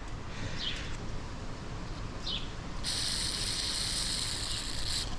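Aerosol can of brake cleaner spraying through its thin straw tube in one steady hiss of about two seconds, starting about three seconds in and cutting off sharply, used to loosen a rubber handlebar grip. Two faint short squeaks come before it.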